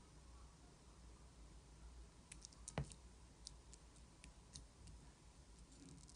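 Slime being handled, giving faint, scattered clicks and small pops over near silence, with one sharper click about three seconds in.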